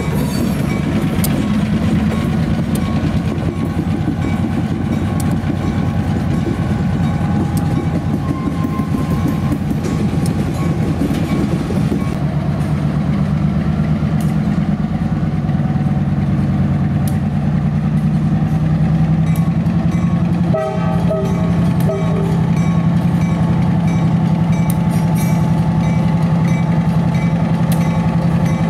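EMD SW1500 switcher's 12-cylinder diesel engine working under load as it pulls a heavy train of loaded covered hoppers: a steady engine drone with the rumble and clack of wheels over the rails. A brief higher tone sounds about two-thirds of the way through.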